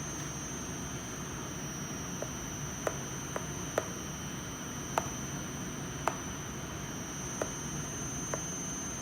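Computer keyboard keys pressed one at a time: about eight short clicks at irregular intervals from about two seconds in, as the keys are tested for whether they register. A steady high-pitched electronic whine and a low hum run underneath.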